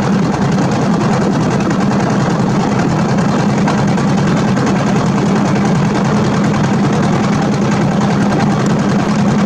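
Engine of a river motorboat running steadily underway: a continuous low drone that does not change.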